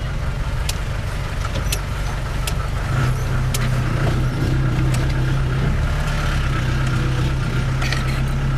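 Car engine and road noise heard from inside the cabin as the car drives slowly. A steady low hum gets louder about three seconds in, with a few light clicks over it.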